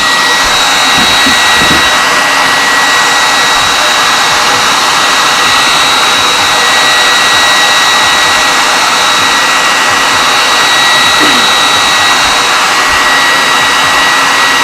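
Hand-held blow dryer running steadily, a loud blowing rush with a steady high-pitched whine.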